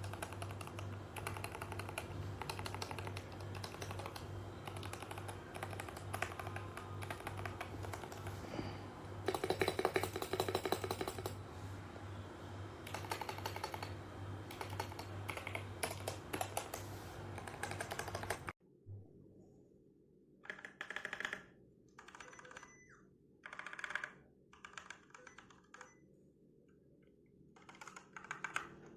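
Fast typing on a mechanical keyboard fitted with DANGKEY dustproof switches, a dense run of key clicks over a low steady hum. It cuts off suddenly after about eighteen seconds, and a few short separate bursts of typing follow.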